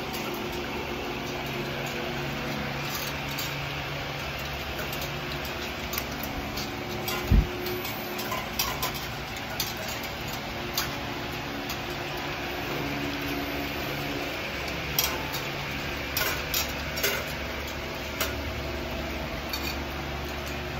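American Bully puppies lapping milk from stainless steel bowls: wet lapping with scattered small clinks of metal, over a steady hum. One low thump about seven seconds in.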